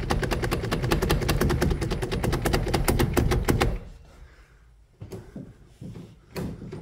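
Car steering wheel being jerked back and forth against a locked steering column, a fast rattling clatter of knocks that stops abruptly about four seconds in, followed by a few single knocks. The steering lock is engaged with the ignition off, so the wheel only knocks against the lock.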